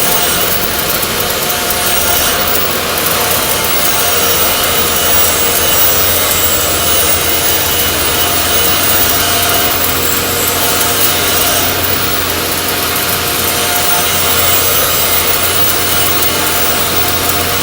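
Stick welding arc crackling steadily as a 1/8-inch 6013 electrode burns at about 120 amps, over a steady low hum.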